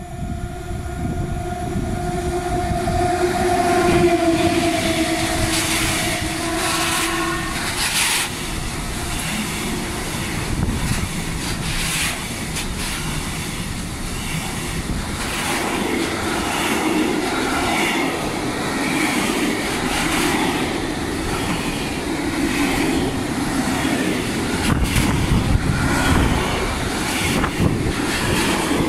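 EU07 electric locomotive howling with a steady two-note whine as it comes up to the platform, the howl ending about seven seconds in. Then a long train of container wagons rolls past, rumbling, with the clickety-clack of wheels over rail joints.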